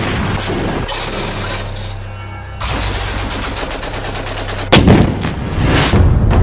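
Gunfire: a couple of single shots early, then a rapid, even burst of automatic fire lasting about two seconds. The burst ends in a loud bang, the loudest sound here, and another shot follows near the end.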